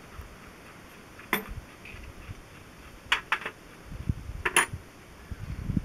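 Light metallic clinks of steel tools and parts being handled at a tractor engine's exposed timing gears: one about a second and a half in, two close together a little past three seconds, and one more about four and a half seconds in, each ringing briefly.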